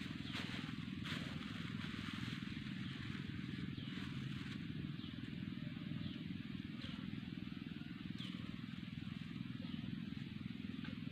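Outdoor ambience: a steady low hum under short, high, downward-dipping chirps that come irregularly, about one a second.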